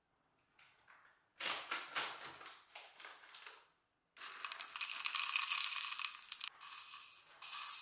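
A coffee bag crinkles in short bursts as it is handled, then whole coffee beans are poured from the bag into a small metal cup on a scale, a steady rattling pour that breaks off briefly twice near the end.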